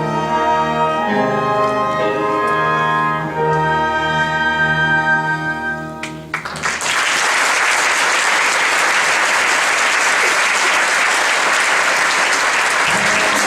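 Orchestral music plays the closing held chords of a song. About six seconds in, it gives way to an audience applauding steadily.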